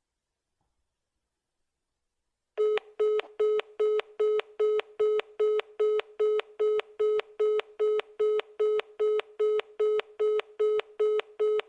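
Telephone line tone after about two and a half seconds of silence: short identical beeps at one steady pitch, repeating a little over two a second. This is the fast busy or call-ended signal of an unanswered phone call.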